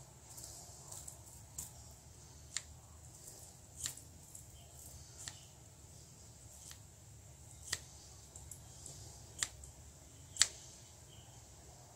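Scissors snipping at stretched nylon pantyhose: about half a dozen short, sharp snips spaced a second or two apart, the loudest near the end.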